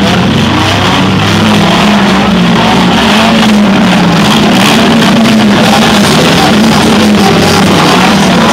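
Demolition derby cars' engines running and revving together in a loud, distorted mix, with rock music playing over it.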